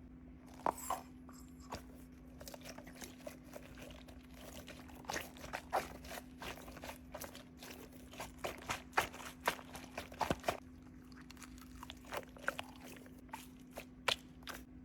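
Irregular crinkling and crunching, many short sharp crackles, as packaged squishy toys are handled and unboxed, over a faint steady low hum.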